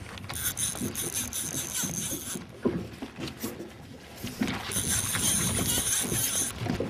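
Fishing reel whirring in two spells, a couple of seconds each, as a hooked trout is reeled in toward the boat, with scattered small clicks and knocks.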